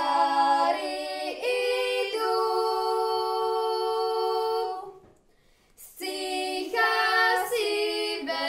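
A voice singing unaccompanied: a slow melody with a long held note a couple of seconds in, a short break about five seconds in, then the singing resumes with shorter notes.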